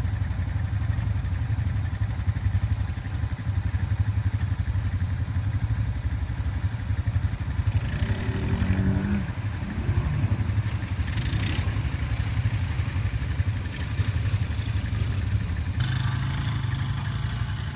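Honda 300 ATV's single-cylinder four-stroke engine running steadily, a fast low chugging, with brief noisy flares about eight and eleven seconds in. The engine keeps running after the machine was sunk.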